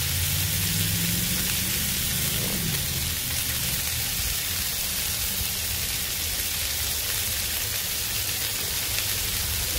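Burger patties sizzling steadily on a hot Blackstone 22-inch flat-top griddle, a continuous frying hiss over a low rumble.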